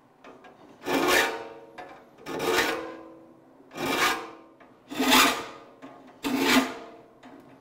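Triangular saw file rasping across the teeth of a crosscut hand saw clamped in a saw vise: about five push strokes, roughly one every second and a half, each with a ringing note from the steel saw plate. The teeth are being sharpened, every other gullet filed at the fleam angle.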